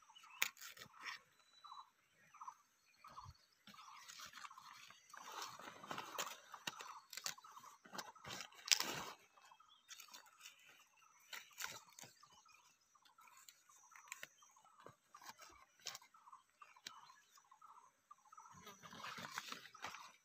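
Fresh banana leaves crinkling and rustling as they are folded and pressed down by hand, with scattered sharp crackles of dry twigs and leaf litter. A faint short note repeats a few times a second behind it.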